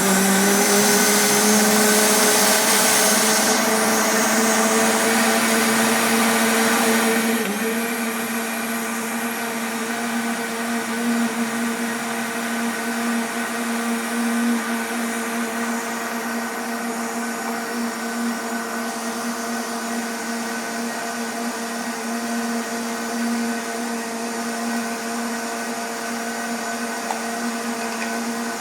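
Kitchen blender motor running steadily, beating eggs, oil, warm milk and sugar into a liquid cake batter. It is louder for about the first seven seconds, then settles to a slightly lower, even hum.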